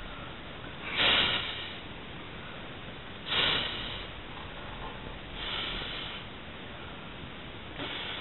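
Forceful breaths through the nose blowing up a rubber glove: four short, sharp hissing bursts about two seconds apart.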